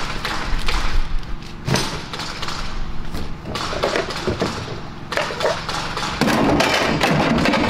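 Rustling of plastic packaging, with knocks and thumps of hard plastic parts, as items are lifted out of a cardboard shipping box; the rustle is loudest near the end.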